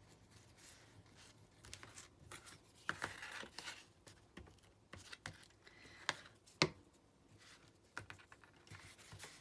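Paper scraps being torn and handled by hand: quiet scattered rustles and short tearing crackles, with a sharp tap about two-thirds of the way through.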